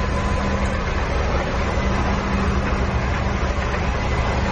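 CDS6266B universal lathe running under power with its chuck spinning: a steady mechanical drone with a constant hum.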